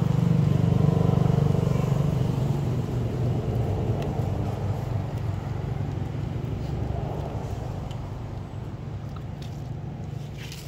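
A passing motor vehicle's engine: a low, steady rumble that is loudest at the start and fades slowly away.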